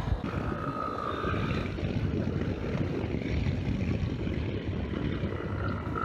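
Yamaha XTZ Ténéré 250's single-cylinder four-stroke engine running at a steady cruise, mixed with wind rushing over the microphone.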